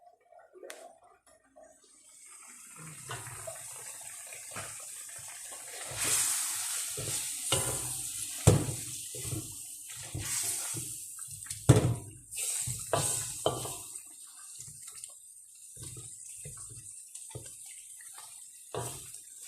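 Water running from a kitchen tap into a sink, with pots or dishes knocking and clattering as things are washed; the water starts about two seconds in, and two knocks stand out as the loudest.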